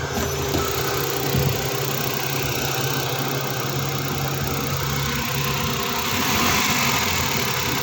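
Suzuki Q6A three-cylinder engine idling steadily and unevenly, misfiring: the scanner reports a misfire on cylinder no. 1, which the mechanic suspects comes from its ignition coil or spark plug.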